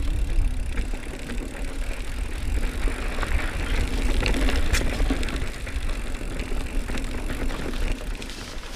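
Mountain bike being ridden on a dry dirt singletrack: a steady rumble from tyres on dirt and wind on the microphone, with scattered clicks and rattles from the bike over bumps.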